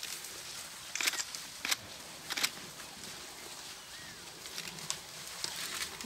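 Dry branches and twigs snapping and crackling as an elephant herd pushes through dry bush: three sharp cracks in the first half, then lighter crackling near the end.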